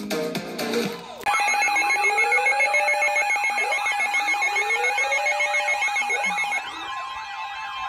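Electronic music for about the first second, then abruptly a loud layered mix of electronic emergency alert tones: a steady tone near the EAS attention-signal pitch with fast warbling, sweeping tones over it. About two-thirds of the way through, part of the mix cuts out and a second steady tone comes in. These are the alert sounds that open an Emergency Alert System warning.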